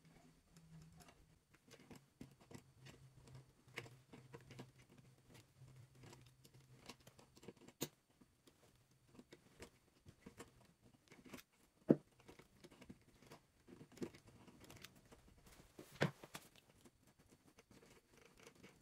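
Faint clicking and scraping of copper ground wires being twisted together with needle-nose pliers and then twisted into a wire nut, with a few sharper clicks about 8, 12 and 16 seconds in.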